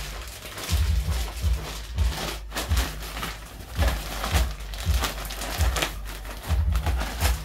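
Plastic bag crinkling and rustling as raw chicken wings are shaken hard inside it, over background music with a steady bass beat.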